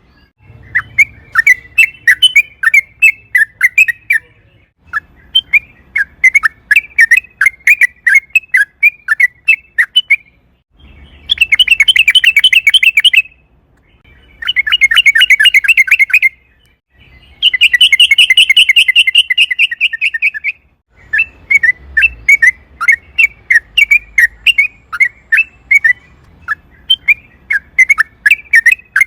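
Yellow-vented bulbul singing: runs of quick, separate chirps, with three long, fast, dense trills near the middle, each lasting two to three seconds.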